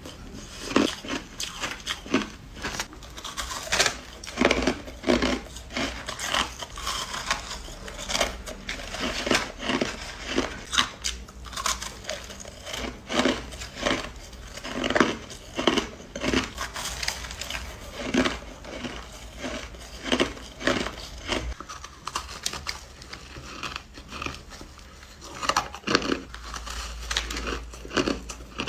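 Hard crushed ice being bitten and crunched between teeth, one sharp crunch after another, about one or two a second.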